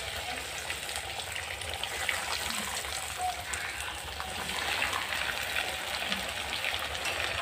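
Hot oil sizzling and crackling steadily in a steel kadai as breadcrumb-coated vegetable chops deep-fry.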